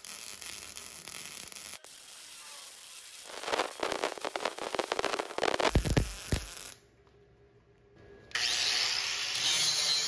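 MIG welding crackle as the drain fitting is welded into the steel pan: one short run, then a longer one from about three to nearly seven seconds in. About eight seconds in, an angle grinder starts and grinds steadily at the weld to take it flush.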